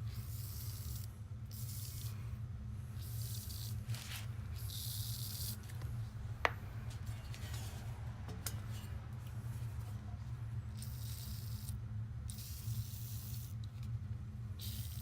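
Short hissing bursts from an aerosol can of PB penetrating oil being sprayed onto seized exhaust header bolts, repeated several times, over a steady low hum. One sharp click about six and a half seconds in.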